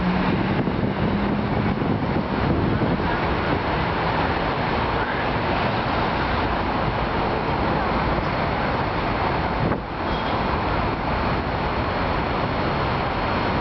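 Steady road traffic noise from cars going by, with one vehicle's engine hum rising slightly in pitch over the first couple of seconds.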